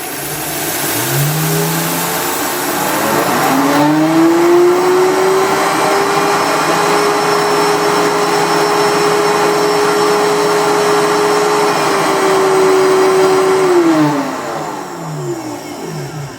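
Optimum 9200A high-speed blender grinding dry flax seed into meal. The motor rises in pitch over the first few seconds, runs at a steady high speed with a dense grinding hiss, then winds down and stops near the end.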